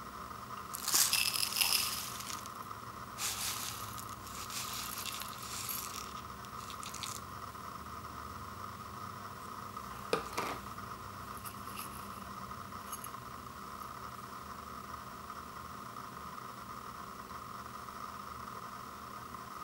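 Dry uncooked rice and seasoning poured from a cup into a ceramic bowl, a hissing rattle in two bursts over the first few seconds, then a single knock about ten seconds in. A steady faint tone runs underneath.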